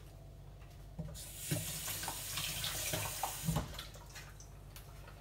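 Kitchen tap running into a sink for about two and a half seconds, turned on about a second in and off again, with a few knocks as it starts and stops.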